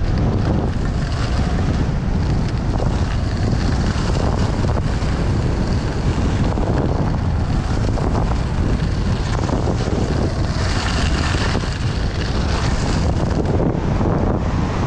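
Wind buffeting the microphone of a skier's action camera during a downhill run, a steady loud rumble, with the hiss and scrape of skis sliding over hard, chopped-up snow that grows stronger for a couple of seconds about ten seconds in.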